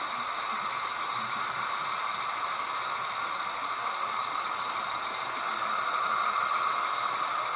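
H0 model trains running on the layout: a steady whirring hum of model locomotive motors and wheels on track, getting louder about six seconds in as the model ÖBB Rh2016 diesel with its CityShuttle train approaches the station.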